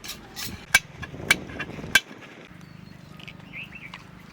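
A few sharp knocks of kitchen utensils, each with a brief ring, in the first two seconds. Then a low steady hum with a few faint bird chirps.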